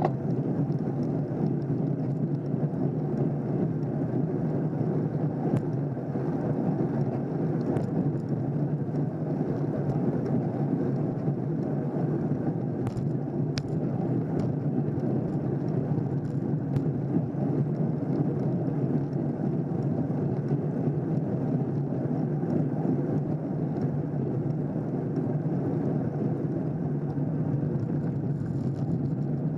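Steady rushing noise of road bicycles riding in a tight bunch, tyres on asphalt with wind on a bike-mounted microphone, with a few faint clicks partway through.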